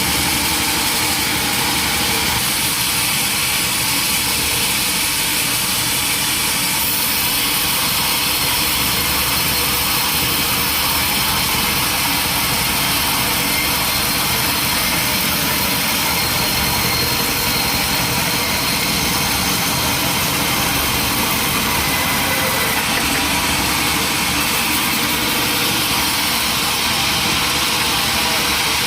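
Sawmill machinery running steadily: an engine-like drone with a constant hiss and no change in level.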